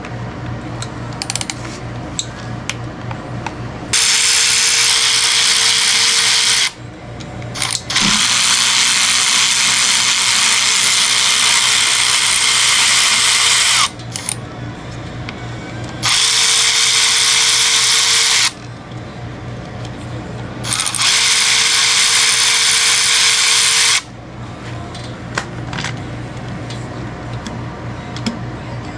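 Power tool running in four bursts of a few seconds each, with a steady whine over a loud hiss, while it spins bolts off an engine during teardown.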